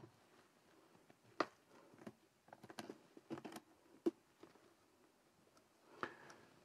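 A few faint, irregular clicks and light handling noise from gloved hands working a piston ring on a Mercedes M117 aluminium piston.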